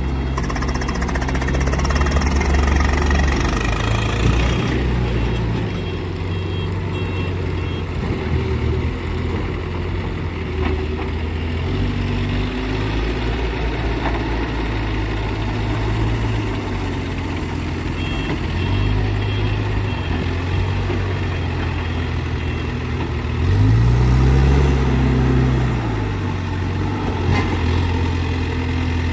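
Case 851EX backhoe loader's diesel engine running, its speed rising and falling as it works, with a louder rev about three-quarters of the way through. A faint high beeping comes and goes twice.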